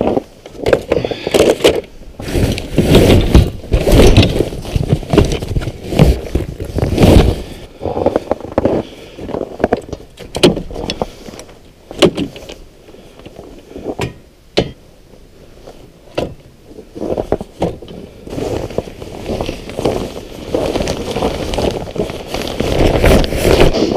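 Irregular knocks, clunks and rustling as ice-fishing gear is handled on a snowmobile's rear rack and in a fabric gear bag, with loud rough stretches around the middle and near the end.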